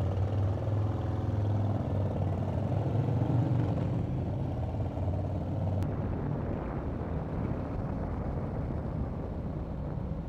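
Harley-Davidson V-twin motorcycle engine pulling away from a stop and accelerating, its pitch shifting over the first few seconds, with wind and road noise taking over as speed builds.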